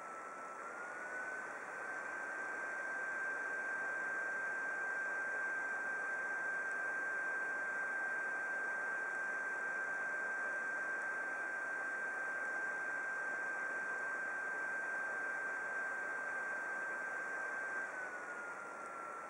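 Computer cooling fan whirring: a steady airy hiss with a thin whine. About a second in it speeds up, the whine rising a little in pitch and the sound growing louder; it holds there, then slows back down near the end.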